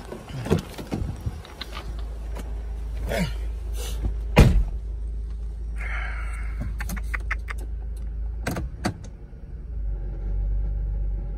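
Honda car engine idling, heard from inside the cabin, with several sharp knocks and clicks as the door shuts and the transmission is put into gear, the loudest about four and a half seconds in. The low engine hum grows louder near the end as the car is in gear.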